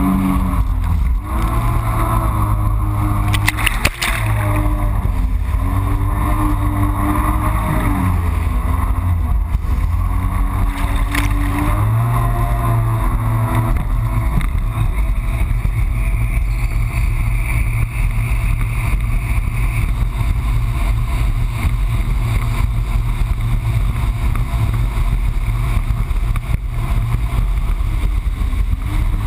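Yamaha FX Cruiser HO jet ski's four-stroke engine running under way, its pitch rising and falling with the throttle for the first dozen seconds, then holding steadier. There are a few brief knocks about four and eleven seconds in.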